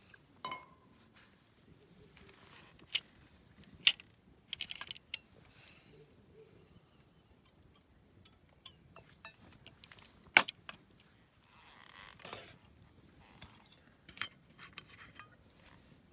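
Scattered sharp clicks and clinks of small hard objects being handled, the loudest two about four and ten seconds in, with a few softer rustles between.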